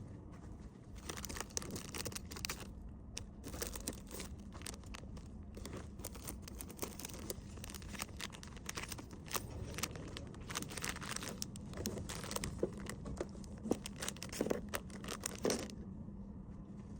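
Packaging being handled: crinkling and rustling with many small clicks, stopping a second or so before the end, over a faint steady hum.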